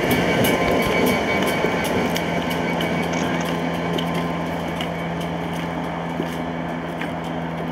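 Class 67 diesel-electric locomotive's V12 two-stroke engine running as the locomotive passes light, with no train behind it, and draws away, a steady engine note under track rumble, slowly growing quieter.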